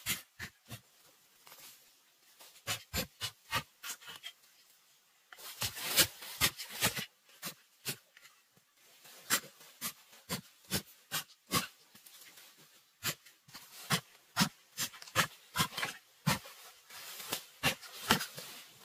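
A wooden digging stick jabbing and scraping into dry soil and leaf litter while a hole is dug by hand: irregular runs of sharp strikes, often two or three a second, with short pauses between runs.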